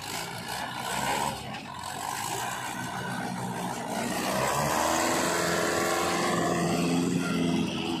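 Mahindra DI tractor's diesel engine pulling a loaded soil trolley; its note rises and grows louder about halfway through as it works under load.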